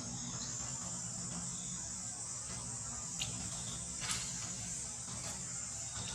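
Steady high-pitched drone of insects, with two short sharp clicks a little past three and four seconds in, over a low steady hum.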